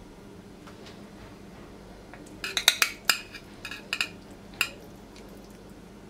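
Metal spatula clinking against a ceramic serving plate and a glass baking dish while slices are lifted out and set down: a quick run of sharp, ringing clinks in the middle, then quiet handling.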